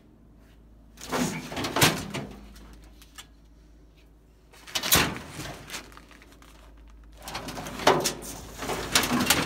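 Three bursts of scraping and rattling as loose sheet-metal aircraft panels and debris are handled, with a few sharp knocks.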